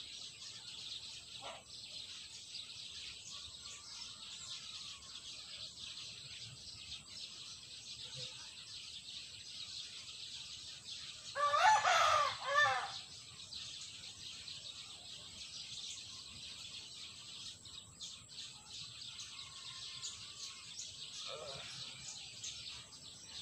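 A rooster crowing once, about halfway through: a single call of about a second and a half, the loudest sound here. Around it, a steady high hiss with a few faint chirps from other birds.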